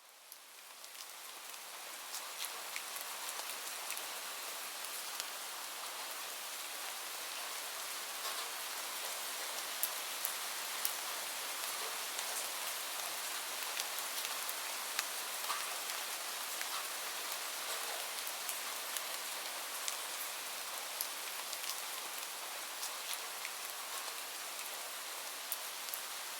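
Rain falling, fading in over the first two seconds and then steady, with many individual drops ticking through the hiss.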